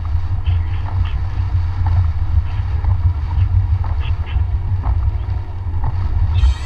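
Inside a car driving on a wet road in heavy rain: a steady low road and engine rumble, with rain hitting the windshield and scattered short ticks as the wipers sweep. Near the end a brighter hiss comes in abruptly.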